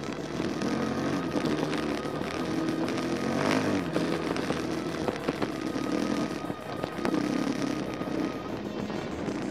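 Dirt bike engine running on a trail ride, its pitch rising and falling with the throttle.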